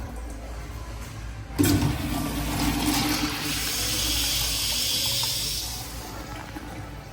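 Toto toilet flushing. A sudden rush of water starts about a second and a half in, with a low hum for the first couple of seconds, then the water runs on and fades out.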